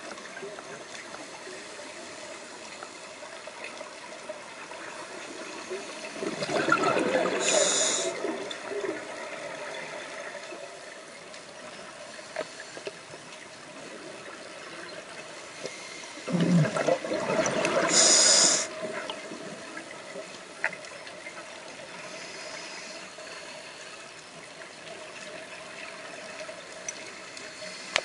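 A scuba diver breathing through a regulator, heard underwater: two loud rushes of exhaled bubbles about ten seconds apart, each lasting about two seconds and ending in a higher hiss, over a steady underwater hiss.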